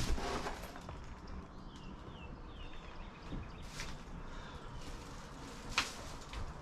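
Footsteps and a few scattered knocks on the floor of a run-down house, with a few faint short chirps about two seconds in.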